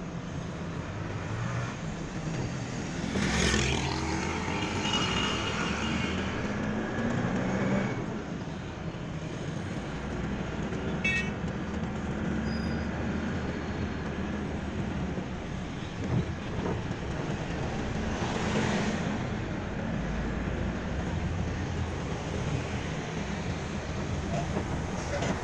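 Car driving through city traffic, heard from inside the car: a steady engine and road hum, with two louder swells of passing traffic, about three and a half seconds in and again near eighteen seconds.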